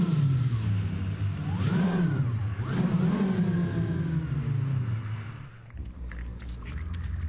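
Honda engine revving up and falling back about three times, then dropping to a lower, steadier rumble with a few clicks near the end.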